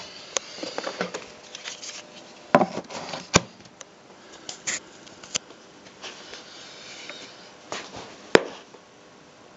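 Scattered sharp clicks and knocks with some rubbing, as hard objects are handled, the two loudest knocks about three and eight seconds in; no motor running.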